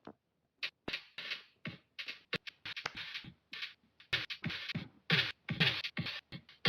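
Mouth percussion in the manner of beatboxing: a quick, uneven run of hissing bursts, sharp clicks and low pops.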